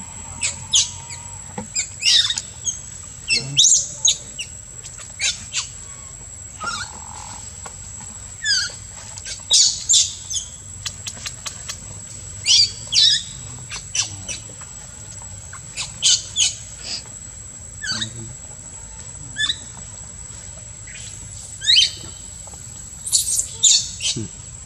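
Short, high-pitched animal calls in quick clusters every second or two, some falling in pitch, over a steady high whine.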